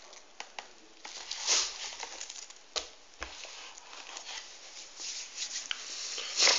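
Soft rustling and handling noises, with a couple of light knocks about three seconds in as a two-litre plastic cola bottle is set down.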